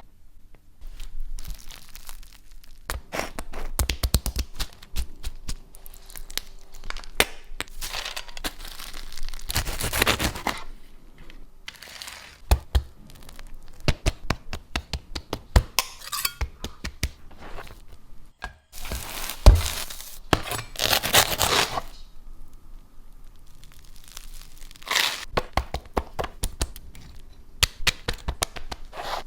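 A sandwich being handled and cut: crackling and tearing sounds in repeated short spells, with occasional knocks and scrapes.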